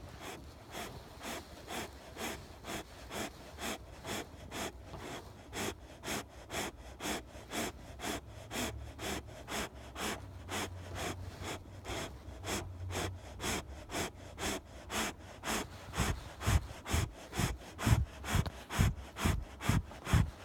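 Snoring: quick, even breaths about two or three a second, turning into louder, deeper low snores in the last few seconds.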